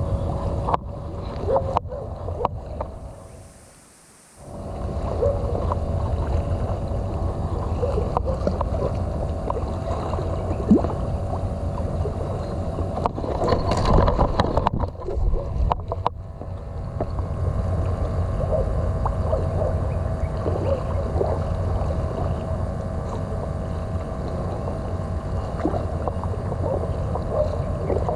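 Steady low rumble with a faint hum, like a boat engine running, with a brief drop about four seconds in.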